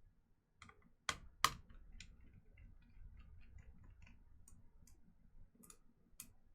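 Faint clicking and ticking of a screwdriver working a spring-loaded screw out of the back of a graphics card. Two sharper clicks come a little over a second in, then a scatter of light ticks.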